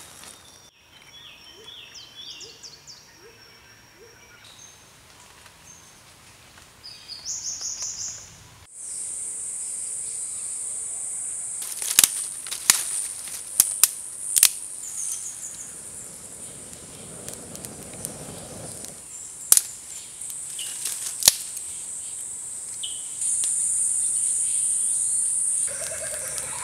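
Outdoor bush ambience. Birds chirp in short repeated calls for the first several seconds, then a steady high-pitched insect drone takes over and grows louder near the end. A handful of sharp cracks come through around the middle.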